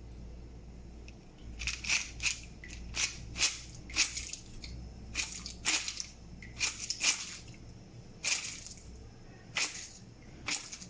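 Kitchen preparation sounds: a run of short, sharp crunching clicks at irregular intervals, about fifteen in all.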